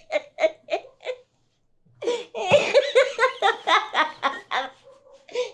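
A woman laughing hard in quick, even bursts. The laugh breaks off about a second in and starts again, louder, about two seconds in, with a fresh run just before the end.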